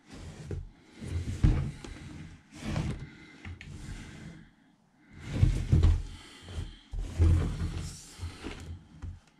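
Shrink-wrapped cardboard model kit box being handled on a workbench: irregular rustling, rubbing and light bumps in several bursts with short pauses between them.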